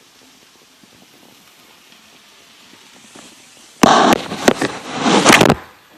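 Handling noise on the recording tablet: about four seconds in, a sudden, very loud run of knocks and scraping right against its microphone lasting about two seconds, with a tangled charger cord in the way.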